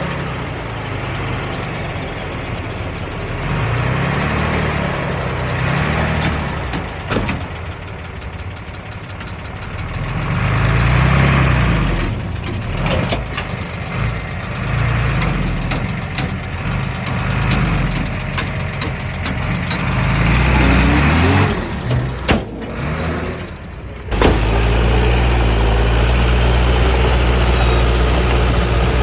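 Bulldozer diesel engine working, its pitch rising and falling repeatedly under load, with a few sharp metallic clanks. About three quarters of the way through, the sound changes abruptly to a steady, deeper engine drone.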